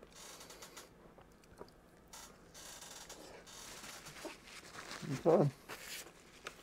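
Quiet eating sounds: chewing and the rustle of a paper wrapper while a donut burger is eaten, with a short hummed 'mm' from the eater a little after five seconds in.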